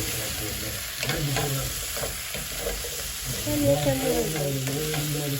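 Food sizzling as it fries in a pan, with stirring and a few short utensil clicks.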